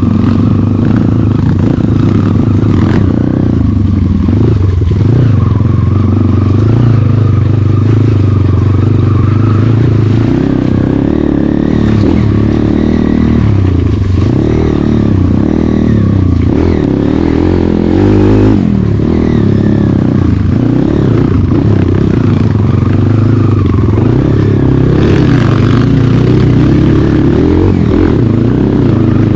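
Off-road motorcycle engine running hard as it is ridden, its revs rising and falling again and again, with some clatter.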